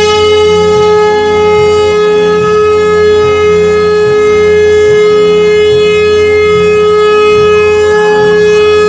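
DJ sound-check music: one loud, horn-like note held at a steady pitch, over a deep bass beat that pulses about once a second.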